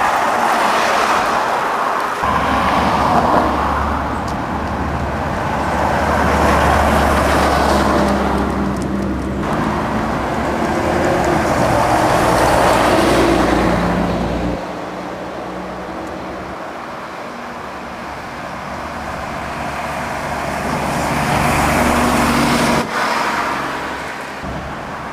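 Single-decker buses pulling past close by, a deep engine drone swelling and fading as they go. A little over halfway through, the heavy drone drops away abruptly, leaving lighter road traffic noise that builds again near the end.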